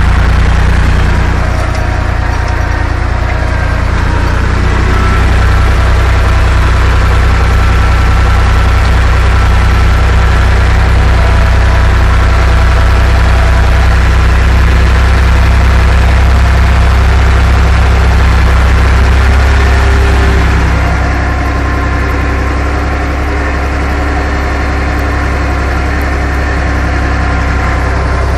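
Torpedo 45 tractor's diesel engine running steadily under load, pulling a two-furrow plough through dry ground, heard from inside the cab. The note eases slightly about twenty seconds in.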